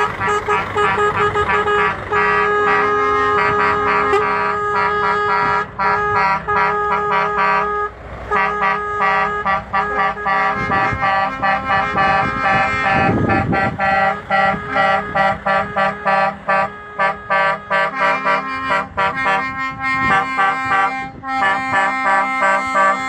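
Several lorries' air horns honking together in long, overlapping blasts at different pitches, with frequent short breaks, over the noise of the moving vehicle.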